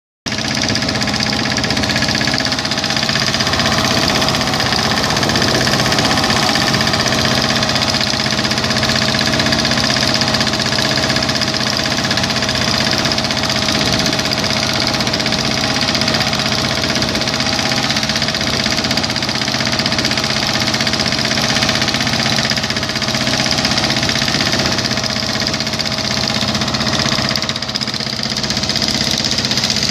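An engine running steadily at an even speed, with a constant hum and a hissy mechanical noise over it.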